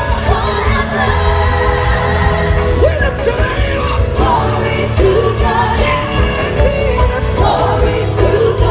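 Live gospel music: a band with a heavy bass and drums, and singing over it.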